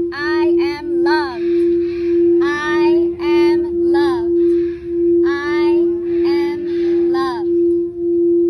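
A singing bowl ringing with one steady, unbroken tone, while zoo animals answer with a string of short, high, whistly calls that swoop up and down in pitch, several each second with brief pauses between runs.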